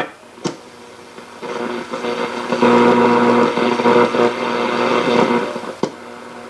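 1937 Sears Silvertone tube radio's speaker buzzing loudly with mains hum and static while tuned between stations, with sharp clicks near the start and just before the end.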